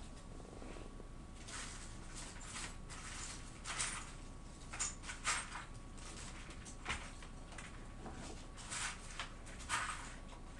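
Scattered light rustles and clicks of small objects being handled and rummaged through on a workbench, about a dozen short sounds spread irregularly, the sharpest near the middle.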